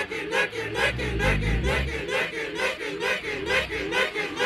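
A dense mix of overlapping, unintelligible voices, chant-like or babbling, with a low rumble underneath for the first couple of seconds.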